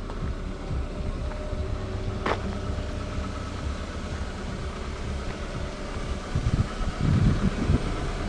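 Car engine running steadily, with a single sharp click about two seconds in.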